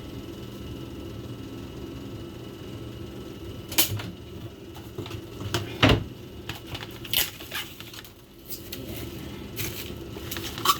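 Scattered knocks and clicks of kitchen things being handled, five or six in all, the loudest about six seconds in, over a low steady hum.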